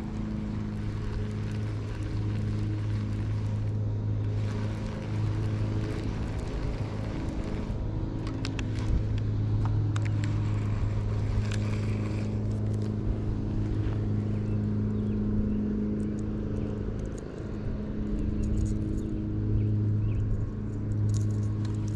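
A steady low mechanical hum, like an engine or motor running, holding one pitch throughout, with a few faint clicks and rustles.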